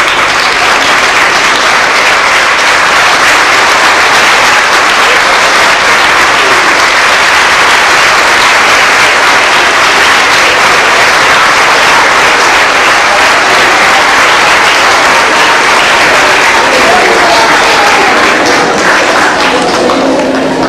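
Large audience applauding steadily, a dense continuous clapping that eases slightly near the end.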